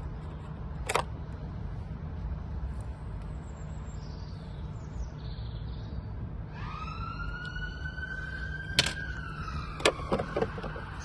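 A siren-like wail starts about six and a half seconds in, rising quickly and then holding and slowly falling, over a steady low hum. A few sharp clicks sound about a second in and twice near the end.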